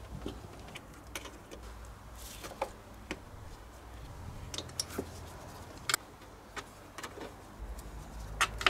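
Scattered light clicks and taps of car parts and trim being handled by hand, over a low steady hum, with the sharpest click near the end.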